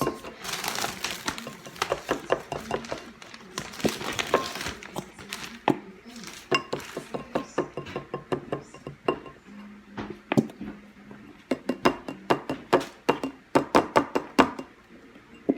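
Clinking and tapping against a bowl as slime is scraped and knocked out of its container. Scraping in the first few seconds, then many sharp taps, quickening near the end.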